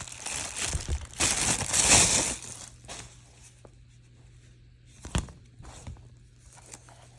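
Packaging being handled and torn open: crinkling and tearing for about the first two and a half seconds, then a few soft taps and one sharper click about five seconds in.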